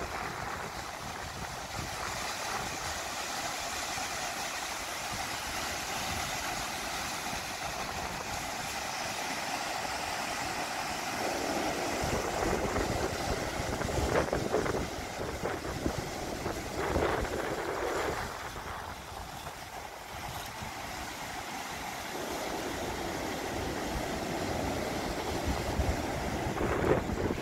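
Ocean surf washing over a rocky shoreline, with wind buffeting the microphone; a few louder wave surges come about halfway through, a few seconds later, and near the end.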